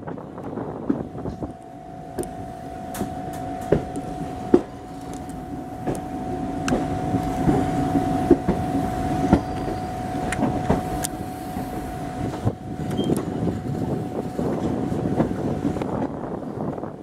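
Passenger coach wheels of an accelerating express train rolling over the points and rail joints of a station yard, with many sharp clicks. A steady high whine runs through most of it, heard from an open coach door.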